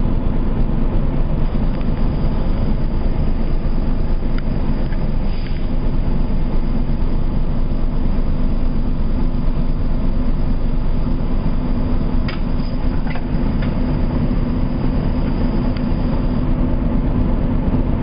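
Engine of an RTS transit bus running, heard from inside the passenger cabin as a steady low drone, with a few light clicks about a quarter of the way in and again past the middle.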